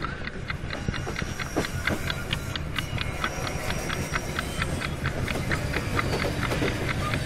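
Mumbai suburban electric train running, a steady rumble with rapid, even clicking throughout.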